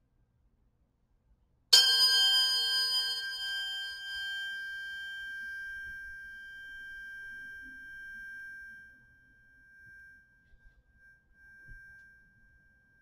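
A pair of Fibonacci-sequence sound-healing tuning forks struck once, a little under two seconds in: a bright metallic ping, then a clear high tone with a lower one beneath it ringing on and slowly dying away, mostly gone after about seven seconds with a faint trace of the high tone lingering.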